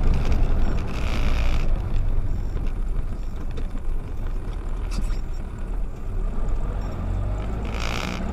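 Car interior driving noise heard through a dashcam: a steady low rumble of engine and road noise, with two short hisses, one about a second in and one near the end.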